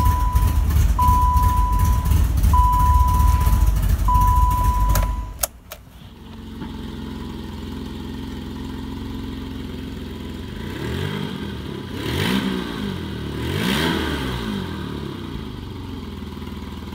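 BMW E30 325iX with its freshly swapped-in engine running. First comes a loud low rumble with a repeating beep about every second and a half. It cuts off suddenly about five seconds in, then the engine idles more quietly, with two throttle blips that rise and fall near the end.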